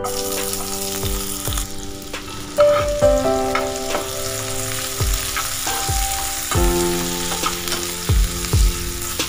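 Chopped onion sizzling in hot oil in a non-stick frying pan. The sizzle starts as the onion drops in. A spatula stirring it knocks and scrapes against the pan now and then.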